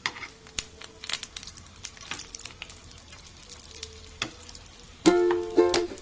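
Food frying in hot oil: a faint sizzle with irregular sharp crackles and pops. Ukulele music comes in about five seconds in.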